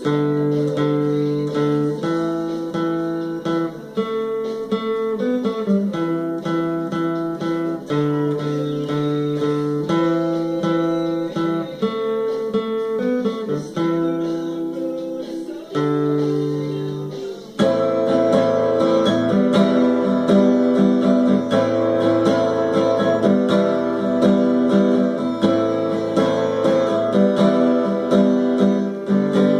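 Guitar music: held chords that change about every two seconds, then from about two-thirds through a busier, louder passage.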